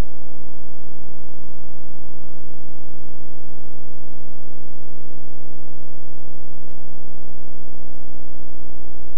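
Loud, steady electrical hum with a buzz of many even overtones, unchanging throughout; no game sound comes through.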